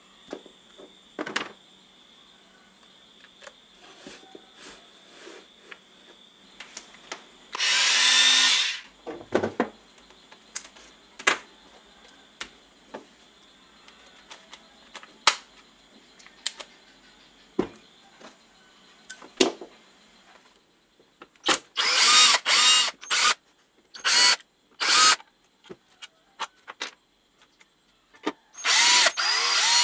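Cordless electric screwdriver whirring in short bursts, its pitch rising as it backs screws out of the jigsaw's housing: one burst about a third of the way in, several close together later on, and one at the end. Between the bursts come clicks and knocks as the old jigsaw is handled on the bench.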